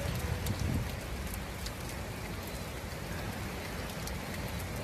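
Heavy rain falling steadily: an even hiss with scattered sharp drop ticks.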